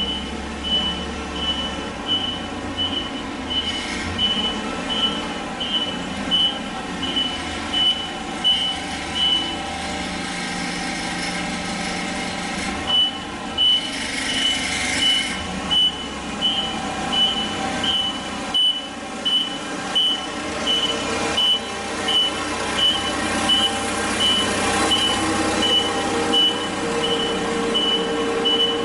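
Truck reversing, its back-up alarm giving a single high beep a little under once a second over the running engine and the body's rattles. The beeping stops for about three seconds a third of the way through, then resumes.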